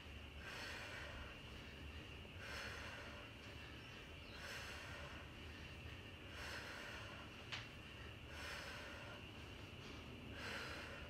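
A woman breathing out hard in time with kettlebell swings, one breath about every two seconds, with a single sharp click about seven and a half seconds in.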